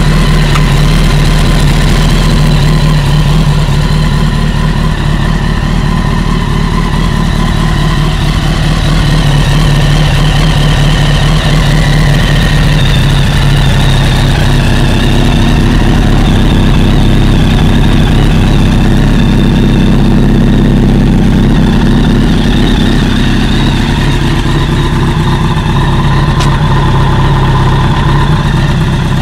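2005 Kawasaki ZX-10R's inline-four engine idling steadily while still cold, picked up by a small camera microphone that catches the exhaust note poorly.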